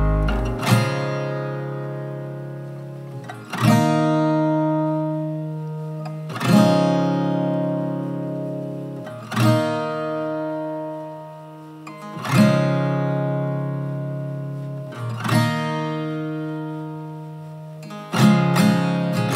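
Uplifting instrumental music: acoustic guitar chords strummed about once every three seconds and left to ring out, with quicker strumming near the end.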